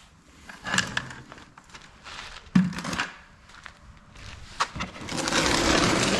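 A few knocks and clatters, as of scrap metal and buckets being handled at a scale, followed from about five seconds in by a steady rushing noise that grows louder, like a vehicle passing.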